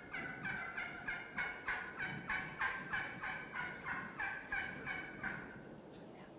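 Wild turkey calling in a long, even run of yelps, about three a second, fading out near the end.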